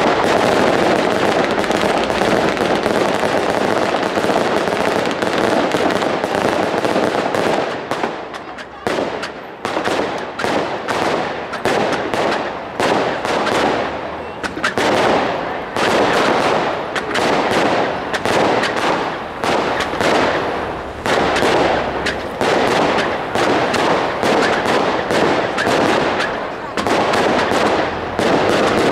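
Consumer fireworks going off: a dense, continuous rush of crackle and hiss for about the first eight seconds, then a run of sharp bangs, several a second, as the shots burst.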